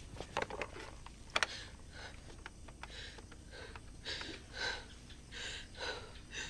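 Shaky, quiet breathing and sniffing from a distressed woman. Early on there are a few sharp clicks from a desk telephone being picked up and dialled.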